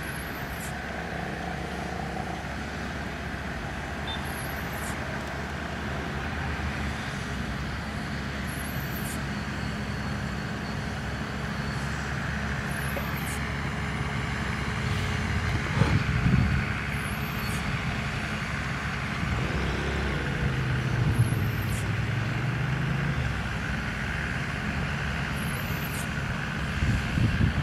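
Engine of an aircraft tow tractor running steadily as it pulls an Airbus A330, growing slowly louder as it draws closer. There is a brief louder rumble about sixteen seconds in, and a short rise and fall in engine pitch a few seconds later.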